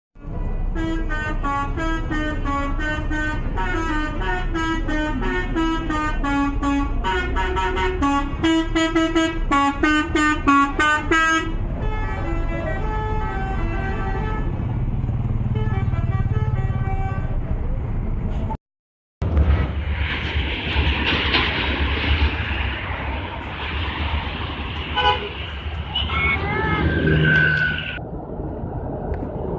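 Bus 'telolet' musical air horn playing a quick, tooting run of notes for about ten seconds, then softer notes that trail off. After a brief break there is a steady noisy rumble with a short horn tone near the end.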